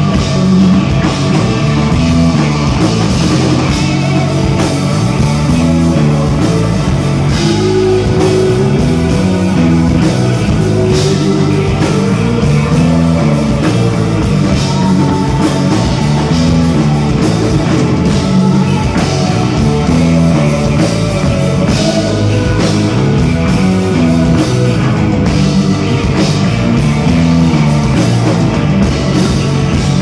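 Rock band playing live at full volume: electric guitars, bass guitar and drum kit in a steady, dense passage.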